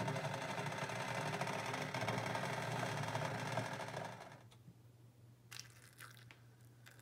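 A steady mechanical whirring noise that cuts off about four seconds in. Then it is quiet, with a few faint splashes as hot water is poured from a stovetop kettle into a china teacup.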